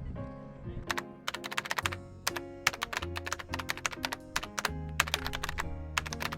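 Background music with a changing bass line, over which sharp clicks tap in quick, uneven clusters like typing.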